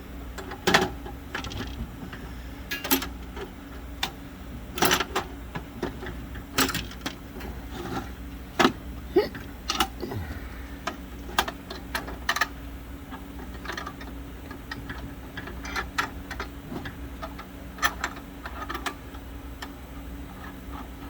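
Irregular clicks, knocks and clatter of a projector lamp module being handled and fitted into a Christie Roadster projector, over a steady low hum.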